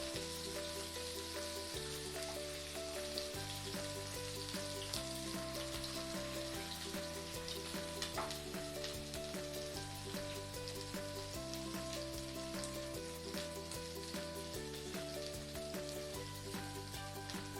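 Oil sizzling and crackling softly around gourd-leaf-wrapped prawn parcels shallow-frying in a little oil on very low heat. Soft background music with slowly changing held notes plays underneath.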